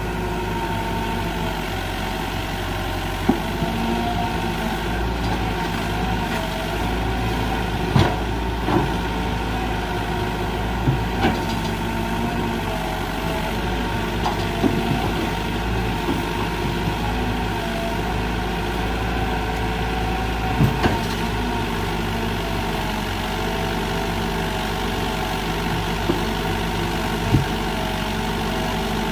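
Sumitomo SH120 A1 hydraulic excavator's diesel engine running steadily, with a faint wavering whine and a few sharp knocks scattered through.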